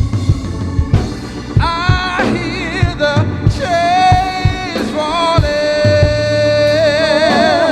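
Live gospel worship music: a band with drums and bass plays, and from about a second and a half in a vocalist sings long, wavering held notes without clear words.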